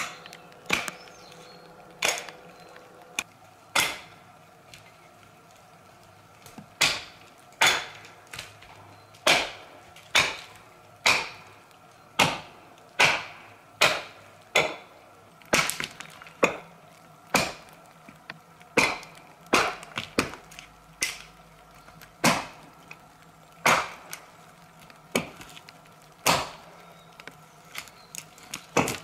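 Hatchet chopping into a log, sharp chops about one a second, with a pause of a few seconds about four seconds in.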